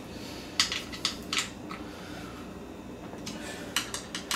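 Light metallic clicks and scrapes of bolts being turned and tightened with a small hand tool through a barstool's chrome mounting plate into the underside of the seat. A handful of clicks come in the first two seconds and another cluster near the end.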